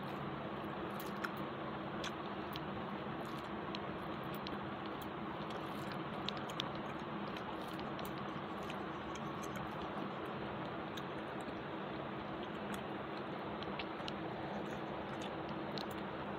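A person chewing a mouthful of rice and curry, with scattered small clicks, over a steady hiss.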